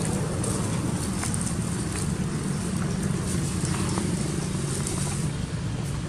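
Steady low rumble of outdoor background noise, with a faint high hiss over it and a few faint clicks.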